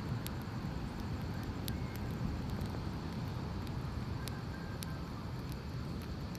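Campfire crackling, with a handful of sharp, scattered pops over a steady low rumble.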